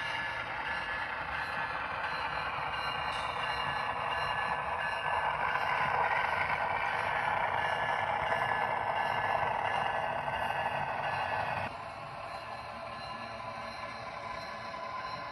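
Model diesel locomotives running on a model railroad layout, making a steady mechanical running noise with faint steady tones that swells as the lead units pass close. The noise drops suddenly about three-quarters of the way through.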